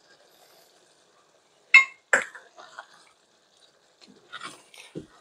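Two sharp clinks of a utensil against a cooking pot about two seconds in, then faint scraping and stirring in the sauce, with a low knock near the end.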